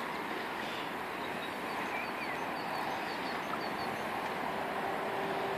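Steady rushing of a fast, high river flowing past the bank, with a few faint high chirps in the middle.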